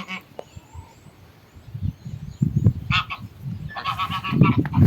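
Geese honking a few times, with short calls about three seconds in and again near the end. Faint high bird chirps repeat through the first second and a half, and a low irregular rumbling sets in after about two seconds.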